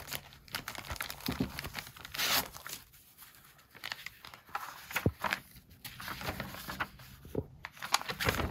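Paper and a thin plastic sleeve rustling and crinkling as an old folded paper map booklet is handled and its pages are leafed through, with a louder rustle about two seconds in.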